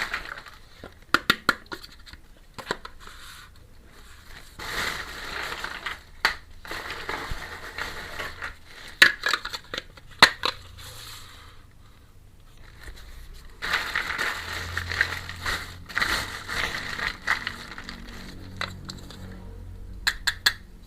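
Packaging crinkling in two long stretches, with sharp clicks and taps of small plastic toy pieces being handled during an unboxing.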